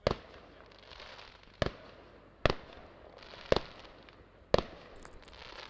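Fireworks going off: five sharp bangs about a second apart, the grand finale of a display.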